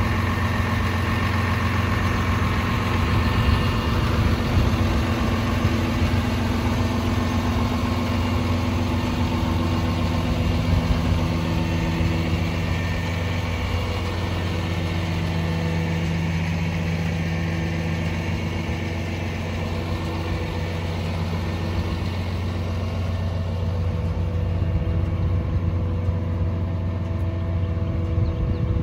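Kenworth T270 rollback tow truck's 300-horsepower PACCAR diesel engine idling steadily.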